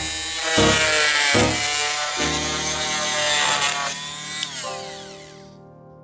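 Guild 300 W oscillating multi-tool buzzing as its blade cuts around a wall socket box, with a couple of short knocks, then dying away about four and a half seconds in. Background music continues under it, and a sustained note rings on as the tool stops.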